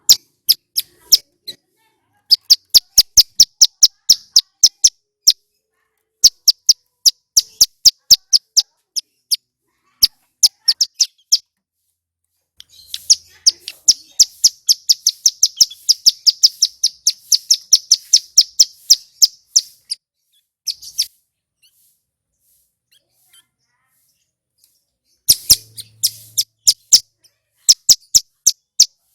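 Male ciblek gunung (mountain prinia) singing loudly: bursts of sharp, high chip notes in quick series. A long, fast trill runs through the middle, with short pauses between the phrases.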